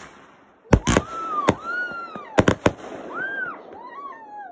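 Consumer fireworks going off: a run of sharp bangs, a pair about a second in, one more a moment later, then a quick cluster of four near the middle, over a crackling hiss. Several high tones rise and fall in pitch between the bangs.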